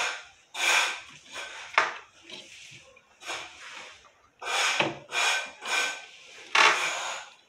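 A drawer being pushed and pulled along the runners of a laminated-board bathroom vanity cabinet: a series of short scraping rubs, with a sharp knock about two seconds in.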